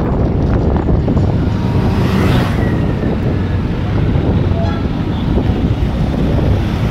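Wind buffeting the microphone of a phone on a moving Yamaha scooter, with the scooter's engine and road noise underneath, steady throughout.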